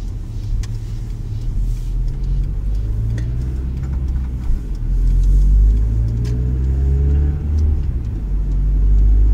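Volvo V40 engine and road noise heard from inside the cabin as the car pulls out and accelerates, the engine note rising in pitch and getting louder from about halfway through.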